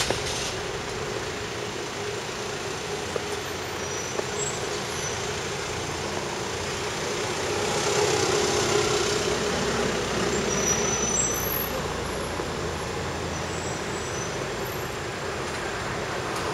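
Steady urban traffic noise, swelling louder as a vehicle passes about eight seconds in.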